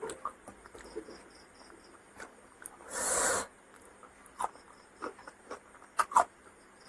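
Close-miked eating sounds of a person chewing fried fish and rice: scattered wet mouth clicks and lip smacks, with one louder half-second noisy burst about three seconds in.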